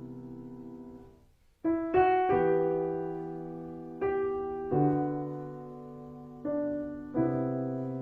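Slow, gentle piano music. A held chord fades almost to silence, then new chords are struck about once a second or two, each ringing out and fading.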